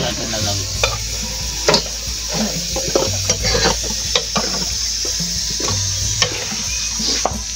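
A metal spoon scraping and clicking against a large iron karahi while hot, oily spiced beef is scooped out of it. A steady sizzle comes from the hot pan.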